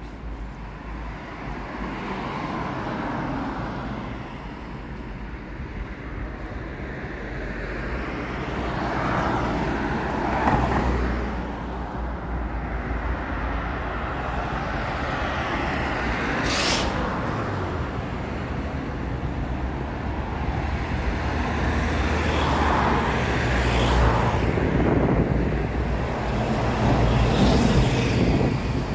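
Road traffic: several vehicles passing one after another over a steady low engine hum.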